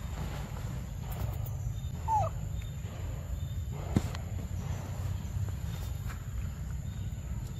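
A single short, falling whimper-like animal call about two seconds in, over a steady low rumble, with a sharp click near four seconds.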